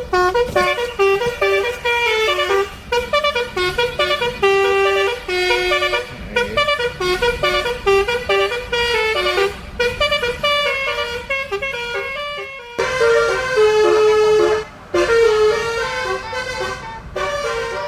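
Basuri 'telolet' bus horn, a set of multi-tone air horns, playing a quick stepping melody of short notes. It cuts off abruptly about two-thirds of the way through, then starts a new phrase.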